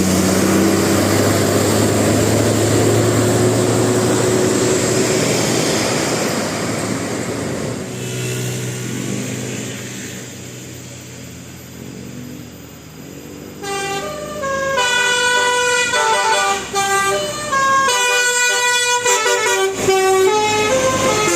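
A bus passes with loud engine and road noise that fades away, then about two-thirds of the way in a telolet basuri musical bus horn plays a quick melody of changing notes.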